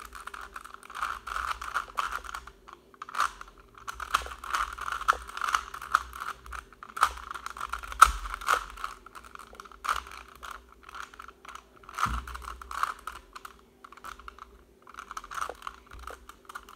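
Plastic Rubik's cube being twisted by hand: quick runs of clicking and scraping as the layers turn, in bursts with short pauses.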